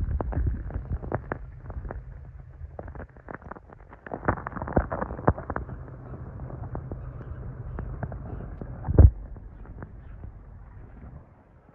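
Muffled sound of a microphone underwater in a pond: a low rumble with scattered clicks and knocks, and one loud thump about nine seconds in.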